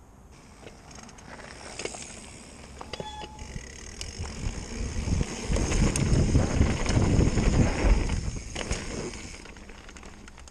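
Mountain bike riding fast down a dirt trail, heard from a handlebar-mounted camera: tyres rolling over packed dirt, with clicks and rattles from the bike and a low rumble that builds, is loudest a little past the middle, then eases off near the end.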